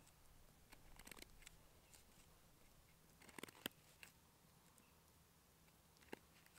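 Faint scraping and clicking of a knife blade shaving bark and wood off a stick, in a few short strokes, the sharpest clicks a little past halfway.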